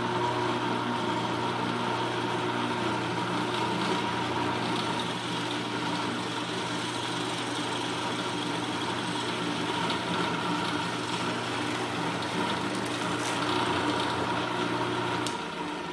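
Floor drill press motor running steadily with a low hum while the bit is fed down into a block of wood. The hum shifts lower shortly before the end.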